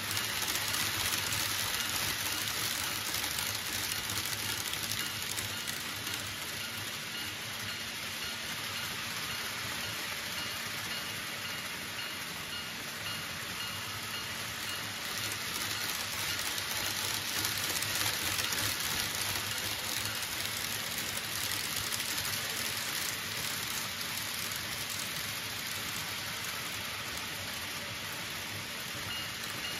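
Model trains running on a layout's track: a steady rushing noise of small wheels on rails and little motors, with a faint high whine through the first half.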